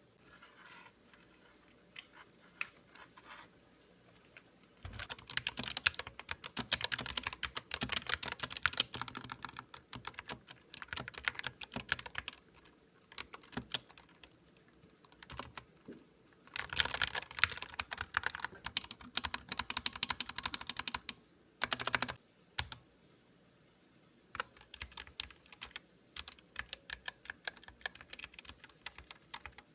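Typing on a Skyloong GK61 60% mechanical keyboard. Fast runs of key clicks start about five seconds in and again a little past halfway, with sparser, slower keystrokes at the start and near the end.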